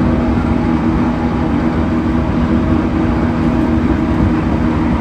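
Running noise inside an E231-1000 series commuter train car at speed: a steady rumble of wheels on rail with a low hum of a few steady tones. This is the car's abnormal noise (異音).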